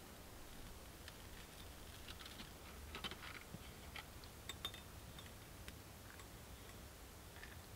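Very quiet: faint, scattered light ticks and clicks, most of them in the middle, over a low steady rumble.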